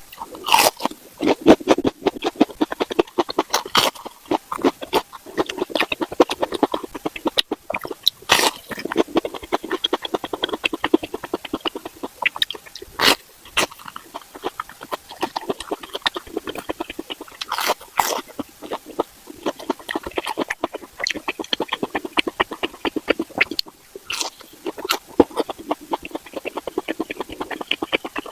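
Close-up eating of beef skin: chewing and mouth smacking in a dense run of small wet clicks, with a louder bite every few seconds.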